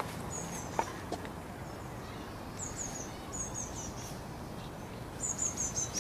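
A bird chirping in four short runs of quick, high, falling notes over steady outdoor background noise. A couple of faint knocks sound about a second in.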